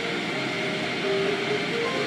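Automatic car wash heard from inside the car: a steady rush of water spray and wash machinery, with music playing over it in held notes that change pitch.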